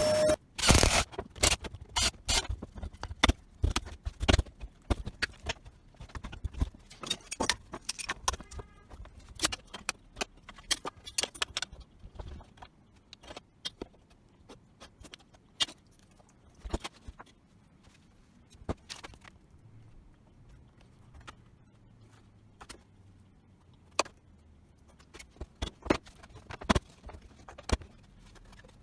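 Irregular clicks, knocks and light clatter of tools and metal parts being handled on a workbench, busy for the first dozen seconds and then sparser.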